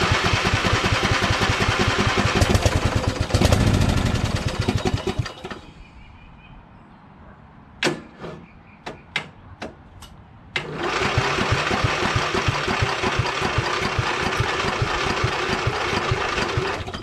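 Craftsman LT2000 lawn tractor's engine being turned over by its electric starter in two long cranking attempts, the first about five seconds and the second about six. Between them are a few sharp clicks. The engine is being cranked to test a freshly rinsed carburetor on a tractor that won't start.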